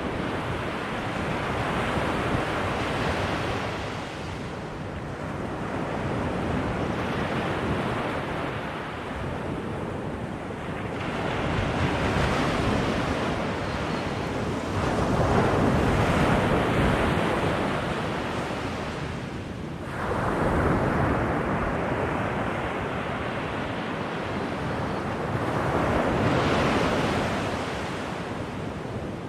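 Ocean waves washing onto a beach, the surf swelling and falling away in slow surges every several seconds.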